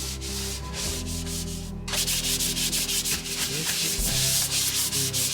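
Stiff brush scrubbing quickly back and forth over a hard surface, the strokes louder from about two seconds in.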